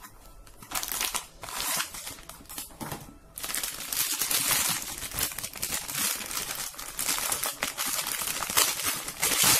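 Clear plastic packaging bag crinkling and rustling as it is handled to unwrap a circuit board. The crinkling starts about a second in and pauses briefly around three seconds.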